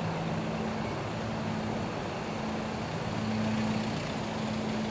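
Steady low hum of a running engine or motor, a few held low tones fading in and out over an even background rumble.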